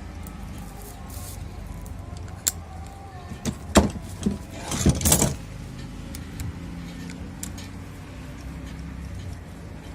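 Metal stand-fan parts being handled and fitted during reassembly: a few sharp clicks, then a short burst of clinking and clattering about halfway through, over a steady low hum.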